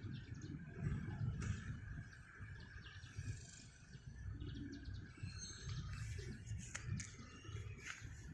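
Quiet outdoor ambience: a few faint high bird chirps, mostly in the second half, over a steady low rumble.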